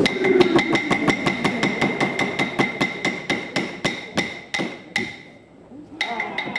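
Wooden clapsticks beaten in a fast, even rhythm, about five strikes a second, each a sharp, slightly ringing click. The beat slows, stops for nearly a second, then picks up again near the end.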